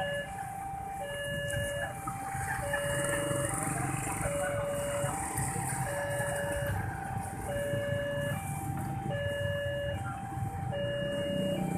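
Railway level-crossing warning alarm sounding a steady electronic two-tone chime that alternates between a lower and a higher tone, each held about half a second; it signals an approaching train. Motorcycle engines run underneath.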